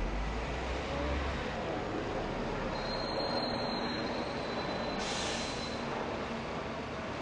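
Steady street noise, a constant rumble and hiss, with a thin high whine for a few seconds in the middle.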